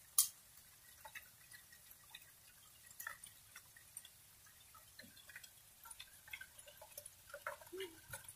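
Rain dripping: faint, irregular drops tapping on hard wet surfaces, with one sharper tap just after the start and a few more close together near the end.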